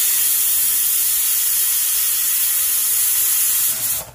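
Aluminium pressure cooker venting steam with a loud, steady hiss as its weight valve is held tilted up to let the pressure out; the hiss stops abruptly near the end when the weight drops back.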